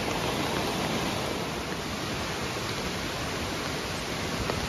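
Rain-swollen, muddy creek water rushing steadily over rocks where it has spilled across the trail.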